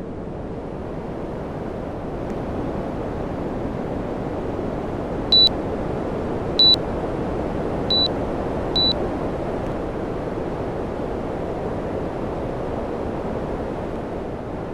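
Air conditioner fan blowing steadily, a smooth rushing noise, with four short, high beeps in the middle: two a little over a second apart, then two closer together.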